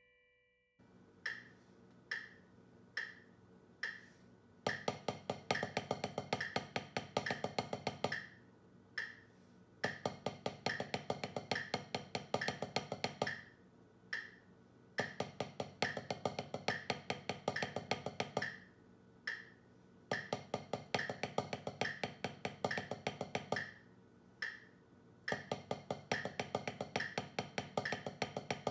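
Metronome clicking at 70 BPM, with wooden drumsticks playing quick, even sticking exercises on a drum practice pad. A few lone clicks count in, then the strokes come in repeating phrases of about four clicks, each followed by a rest of about two clicks in which only the metronome sounds.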